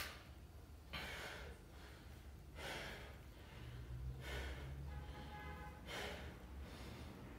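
A man breathing hard after a set of push-ups: loud, deep breaths about every second and a half, one of them voiced like a sigh about five seconds in.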